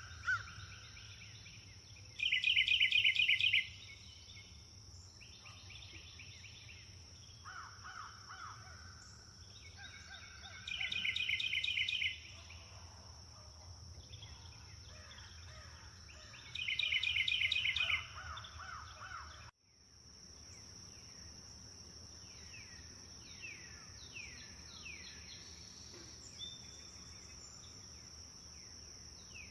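Forest birds calling: three loud bursts of rapid, chattering repeated notes a few seconds apart, over a steady high-pitched whine. After a cut about two-thirds through, many short falling whistled chirps.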